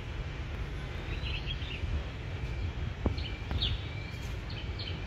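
Outdoor ambience: a steady low rumble of city noise in the background, with small birds chirping now and then in the trees. A single tap sounds about three seconds in.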